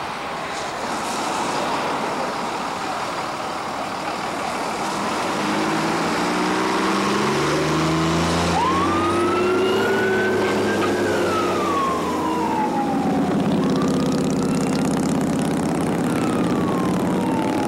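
Fire engine pulling away, its engine revving up through the gears over the hiss of tyres on a wet road. About halfway through, its siren winds up sharply, holds, then slowly winds down, and it winds down again near the end.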